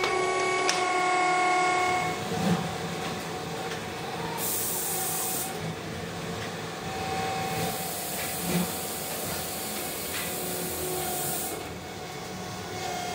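Steady factory machinery hum with several sustained tones, broken by two spells of hissing, like air or steam venting, about four and ten seconds in.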